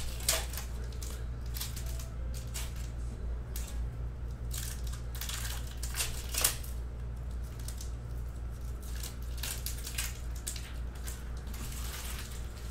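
Bowman baseball trading cards being thumbed through one after another by hand: a run of short papery flicks and slides, with two sharper snaps, one just after the start and one about halfway. A steady low hum sits underneath.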